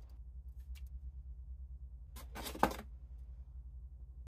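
Clear plastic packaging tray rustling for about half a second, with one sharp click, as a diecast lattice crane boom is handled and lifted out of it, after a few faint light clicks.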